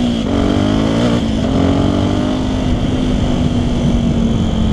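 Yamaha WR125X's single-cylinder 125 cc four-stroke engine running through a LeoVince LV One exhaust with its dB-killer fitted, under way. It revs up through a gear change near the start and another about a second in, then holds a steady pitch.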